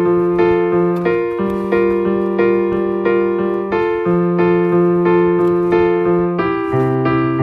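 Background piano music: repeated chords over a slow bass line that changes note every two to three seconds.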